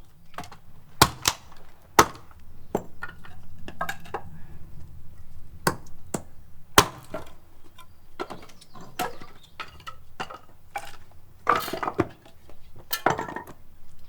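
Irregular sharp knocks and clinks, a dozen or so unevenly spaced, the loudest about a second in, at two seconds and near seven seconds, some with a short ring after them.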